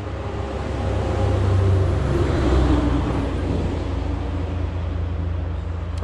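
A road vehicle passing close by: a low rumble that swells about two seconds in, with a faint falling tone as it goes by, then eases back to a steady background rumble.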